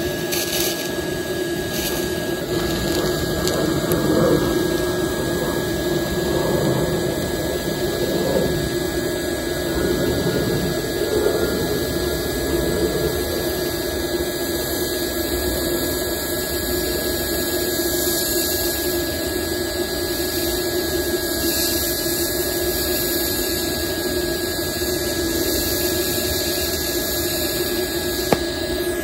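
TIG welding arc burning steadily on steel from a Tooliom TL-200T high-frequency TIG welder: a continuous hissing buzz with a steady hum.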